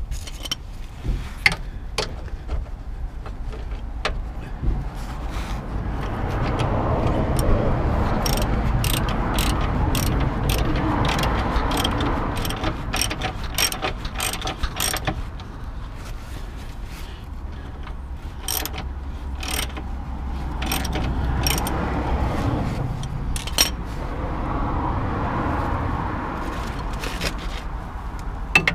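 Socket ratchet clicking in short, irregular runs, with metal tools clinking, as a suspension arm bolt is worked from below. A low rumble swells and fades twice underneath.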